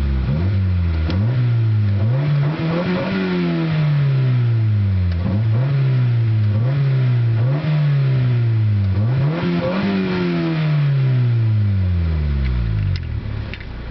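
Honda D15B2 1.5-litre SOHC inline-four engine, in stock form, revved freely: a series of quick blips that each rise fast and sink back, then one long fall back to a steady idle near the end.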